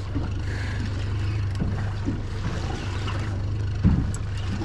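Boat engine idling steadily under a hiss of wind and water, with a single knock about four seconds in.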